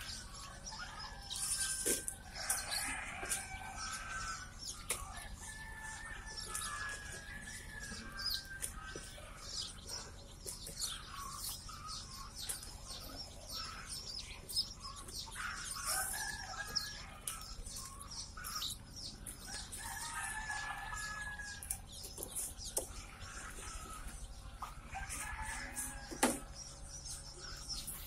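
A crowd of young desi chicks peeping continuously, many short high-pitched cheeps overlapping, with some longer drawn calls among them.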